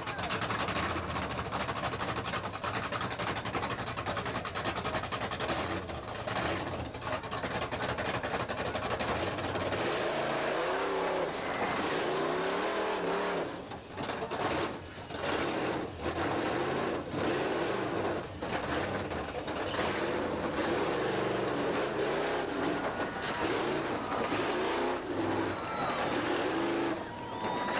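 Monster truck's engine running loud under load as it climbs onto and drives over cars, revving up and down over and over from about ten seconds in.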